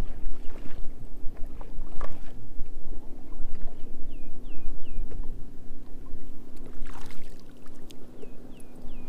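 A hooked bass is reeled to the boat and splashes at the surface about seven seconds in as it is lifted out of the water, over water lapping and a steady low hum on a bass boat. A bird calls now and then in sets of three short falling chirps.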